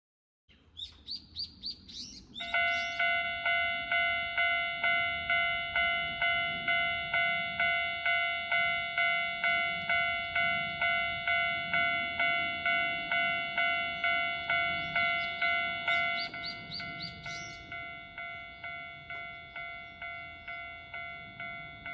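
Japanese railway level crossing's electronic warning bell ringing, evenly spaced dings about twice a second; about two-thirds of the way in it carries on at a noticeably lower volume. A rapid rising run of bird chirps comes just before the bell starts and again where the bell gets quieter.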